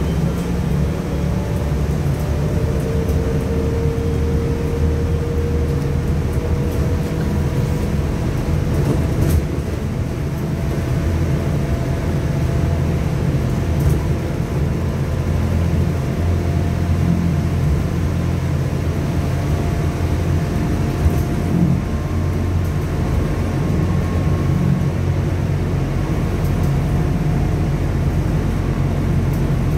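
Cabin noise inside a moving Trolza-5265 Megapolis trolleybus: a steady low rumble from the tyres and body, with the electric traction drive's whine climbing slowly in pitch as it gathers speed. A few faint clicks and rattles are heard.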